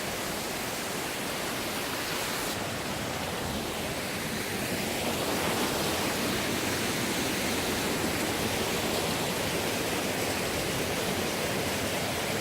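A fast mountain stream running over rocks: a steady rush of white water, growing slightly louder about halfway through.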